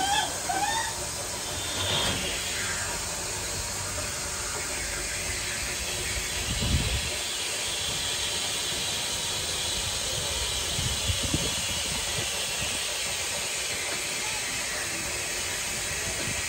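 Steam locomotive venting steam with a steady, even hiss, with a couple of low thuds in the middle.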